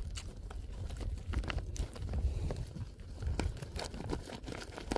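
Close handling noise from hands working with bait: crinkling, crackling and scattered small clicks over a steady low rumble.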